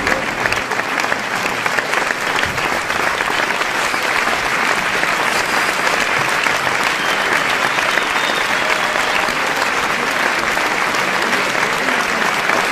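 Large audience applauding steadily, a dense unbroken wash of clapping with faint shouts from the crowd mixed in.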